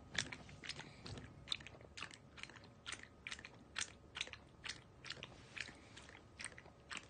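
Elderly dog lapping water from a stainless steel bowl, a steady run of short laps at about two a second. It is a dog whose swallowing had been badly weakened, now drinking on its own.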